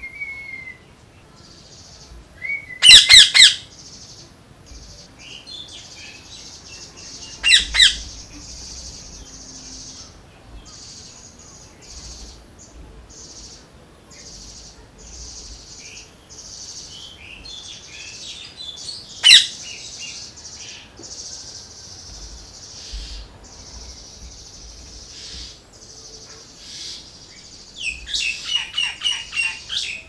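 Parakeet calling: short loud squawks about three, eight and nineteen seconds in, then a quick run of repeated calls near the end, over a steady high-pitched background chirring.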